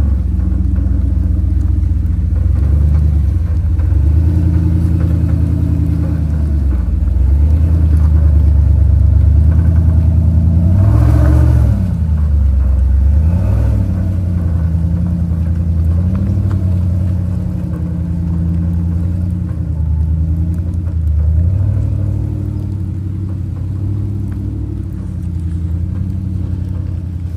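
Off-road vehicle engine running at low revs, its pitch rising and falling with the throttle, with a brief louder surge about eleven seconds in.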